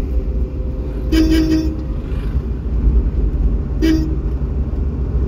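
Vehicle horn honking twice, a blast of about half a second and then a shorter one about two and a half seconds later, over the steady low rumble of a vehicle on the move.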